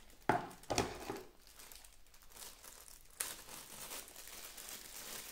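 Cardboard box and plastic packaging handled by hand, rustling and crinkling: a few short, sharp rustles in the first second or so, then a steadier crinkling from about three seconds in.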